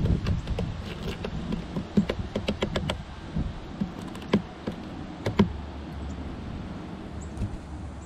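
A run of irregular sharp clicks and taps over a low rumble, the loudest about two, four and a half and five and a half seconds in, thinning out after that. A small bird gives a faint high chirp near the end.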